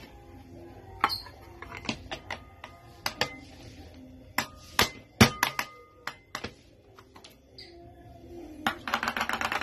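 Plastic container and ceramic plate being knocked and tapped together by hand to turn out a set corn jelly: a series of sharp knocks and clicks, the loudest about five seconds in.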